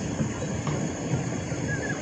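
Riverside ambience: a steady high insect hum, a few light knocks from bait being handled in the boat, and a brief two-note chirp near the end.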